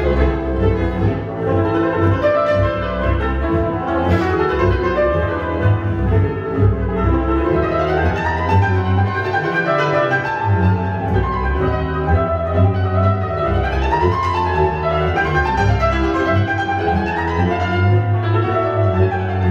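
A Hungarian Gypsy band of violins, viola, cimbalom and double bass playing. The lead violin carries the tune at first; from about eight seconds in, the cimbalom takes over with quick runs that sweep up and down over the bass and string accompaniment.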